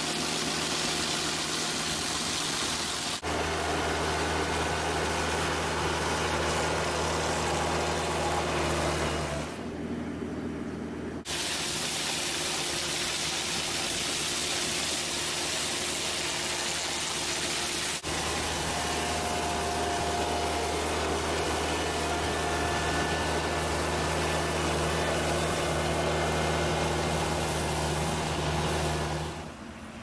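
Compact street sweeper's engine running steadily while its rotary weed brush scrubs along the edge of block paving, a dense hiss over the engine hum. The sound changes abruptly at a few cuts, with a quieter hissing stretch about ten seconds in where the engine hum drops out.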